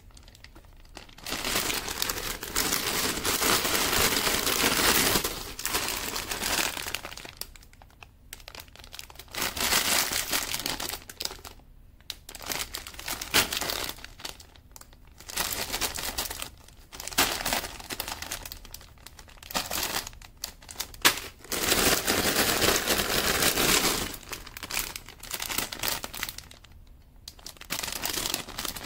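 Clear plastic parts bags full of building-brick pieces crinkling as they are handled and squeezed, in bursts with brief pauses between them.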